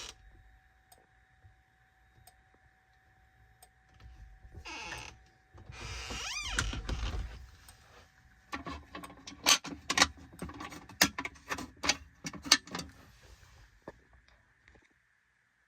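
Fire alarm signalling devices: a tone that sweeps down and back up in pitch about six seconds in, then about five seconds of irregular sharp clacks and rattles over a low buzz.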